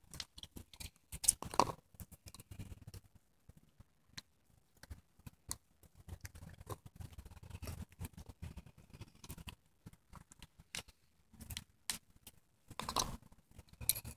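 Scattered light ticks and rustles from handling while picking nightcrawlers off wet ground, with louder rustling scrapes about a second in and again near the end.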